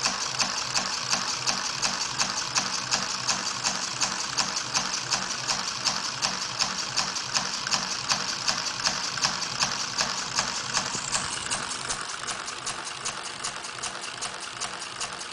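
Lego Technic pneumatic engine running on compressed air: its valve and cylinders puff and click in a fast, even rhythm over a steady air hiss. It is a little quieter from about two-thirds of the way in.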